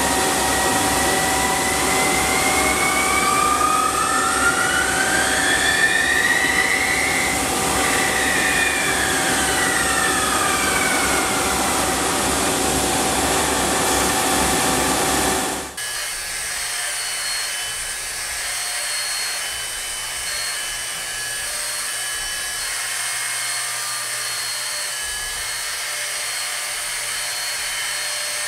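CNC lathe turning a ball-ended metal part, with a whine that rises and then falls in pitch as the tool works along the curve. About halfway through it changes abruptly to a CNC milling machine's end mill cutting a metal block, a little quieter and steady.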